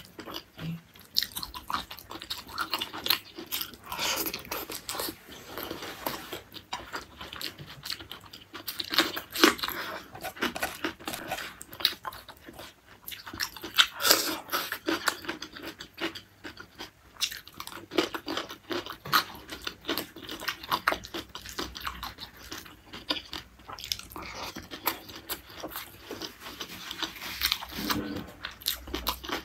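Close-miked eating: a person biting and chewing mouthfuls of beef tendon curry and greens, with many short sharp mouth clicks and crackles.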